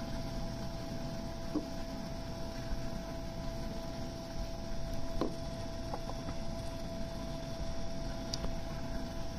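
Steady background hum with a constant tone, broken by a few faint, brief taps.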